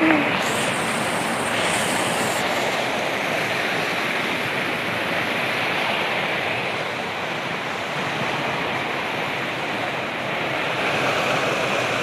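Steady rush of a waterfall and its rapids pouring over rocks.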